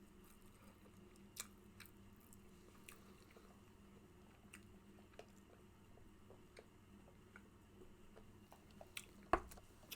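Faint close-up chewing of a mouthful of fast food, with soft wet mouth clicks and smacks, over a faint steady hum. One sharper knock near the end.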